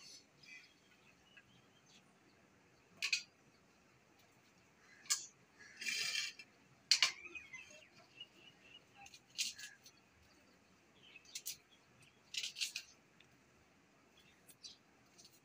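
A kitchen knife clicking and scraping against a small plate as an onion is cut and peeled, in short sharp strokes a second or two apart, with one longer scrape about halfway through.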